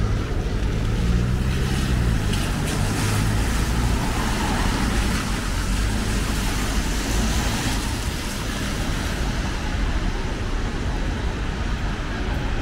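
Street traffic on a wet road: a vehicle passes with its tyres hissing on the wet surface, swelling and fading over several seconds. An engine hum is heard about one to three seconds in, over a constant low traffic rumble.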